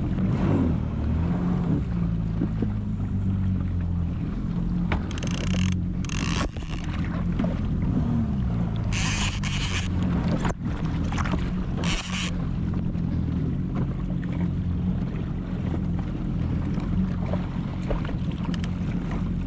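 Jet ski engine running at a steady idle, its low drone drifting slightly in pitch, with four brief bursts of noise over the top.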